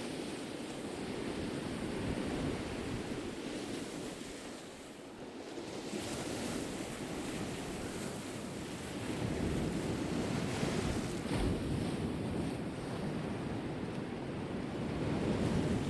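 Sea waves breaking and washing on the shore, with wind buffeting the microphone. The surf swells and eases, dipping about five seconds in and building again after.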